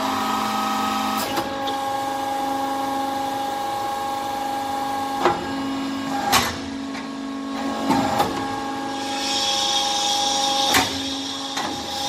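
RUF hydraulic briquetting press running, pressing metal chips into briquettes: a steady machine hum with several sharp knocks at irregular intervals, and a hissing that comes in about nine seconds in and fades a couple of seconds later.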